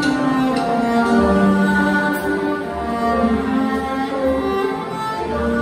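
Live band playing the slow instrumental introduction to a hymn: a sustained melody in a bowed-string sound over low bass notes.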